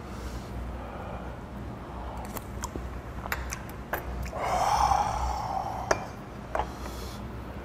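A metal spoon clicking against an earthenware soup bowl as the eater takes spoonfuls of hot soup, with a long breathy exhale from the eater about four and a half seconds in.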